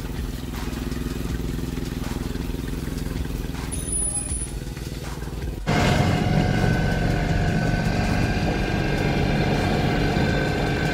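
Propane-fuelled Caterpillar forklift engine running steadily. About six seconds in it switches abruptly to the louder engine and road noise inside the cab of a Ford Super Duty truck under way, with a steady whine over it.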